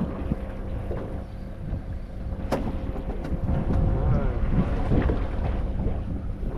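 Wind buffeting the microphone over a small boat at sea, with a steady low hum and water moving against the hull. A single sharp click comes about two and a half seconds in.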